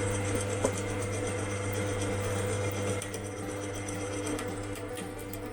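Electric drill motor running steadily, drilling out a sheared Allen bolt in an alloy fork leg; it gets a little quieter about three seconds in.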